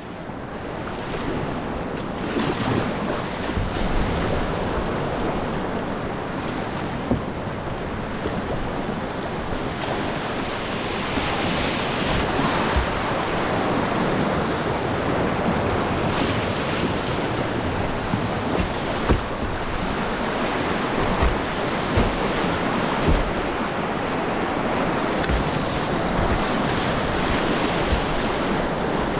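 Steady rush of whitewater rapids on a swollen creek, heard from a kayak running through them, with a few brief knocks.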